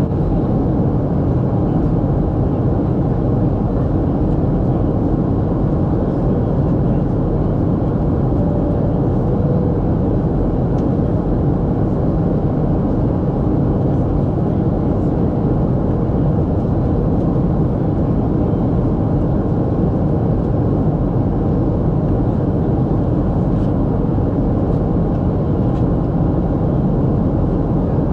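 Steady cabin noise of a Boeing 737 airliner in flight: an even, unchanging low rush of engines and airflow.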